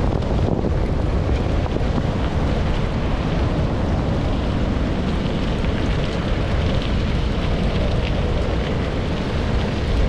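Steady rush of wind noise on the microphone, with the rig rolling over a dirt road, while a team of sled dogs pulls it at a run.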